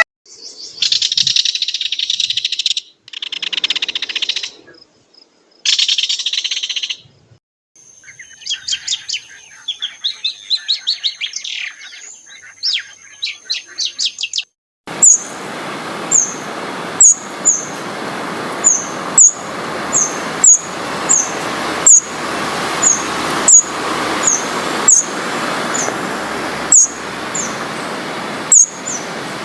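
Small birds chirping and calling in several short stretches that start and stop abruptly. From about halfway, a sharp high chirp repeats about twice a second over a steady hiss.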